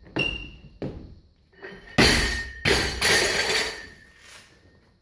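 Loaded barbell with bumper plates dropped from overhead onto the gym floor: a loud crash about two seconds in and a second crash as it bounces, followed by metallic ringing and rattling that fades. Before the drop come two lighter knocks.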